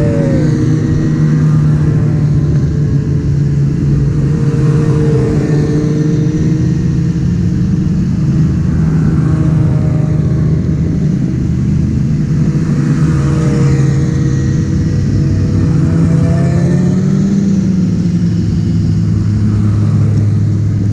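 An engine running steadily at an even pace, its pitch drifting slightly up and down.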